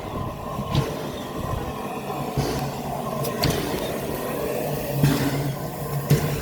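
A train's steady rumble and hum, with irregular sharp clanks and knocks.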